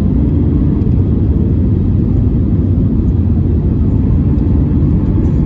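Cabin noise of an Airbus A320neo on approach: a steady low rumble of its CFM LEAP-1A engines and the air rushing past the fuselage.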